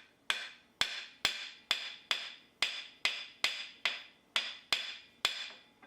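A steady series of sharp wood-block knocks, a little over two a second, each ringing briefly, with dead silence between them: a ticking percussion effect.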